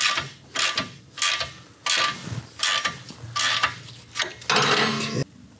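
Ratchet wrench tightening a muffler mounting bolt on a motorcycle, clicking in short strokes about twice a second, with one longer stroke near the end.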